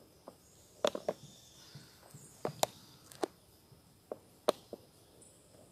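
A dozen or so irregular sharp knocks and clicks on a quiet background, the loudest about a second in and again near the end.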